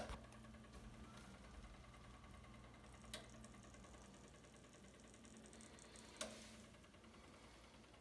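Near silence: a washing machine's faint steady hum, with a soft click about three seconds in and another about six seconds in.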